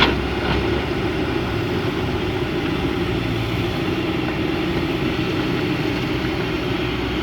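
Heavy diesel machinery engine running steadily, with a sharp click right at the start and a fainter one half a second later.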